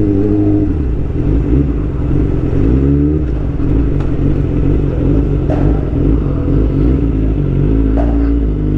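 Kawasaki ZX25R motorcycle's inline-four engine running while riding at low speed, its pitch rising and falling a few times with the throttle.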